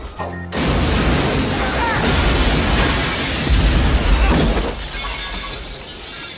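Movie explosion sound effects: a blast breaks in about half a second in, with a deep rumble and a long rush of noise and breaking glass that swells again around four seconds in, then eases off.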